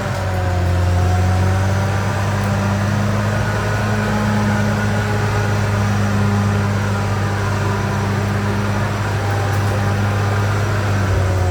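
CAT D6R XL bulldozer's diesel engine running steadily under a deep, even hum, with fainter higher whining tones that waver a little in pitch.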